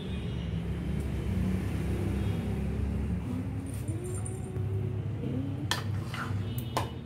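Plastic spoon scraping and tapping against a steel plate and a bowl while spreading a vegetable filling on bread, with a few sharp clinks near the end, over a steady low hum.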